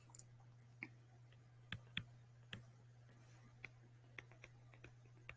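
Near silence with about a dozen faint, irregular clicks and taps of a stylus writing on a tablet screen, over a low steady hum.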